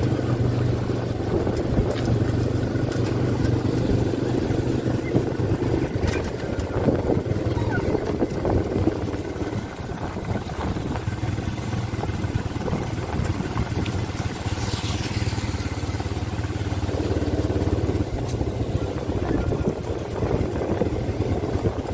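ATV quad bike engine running steadily while riding along a dirt track, a low hum whose note shifts slightly a few seconds in and again near the end.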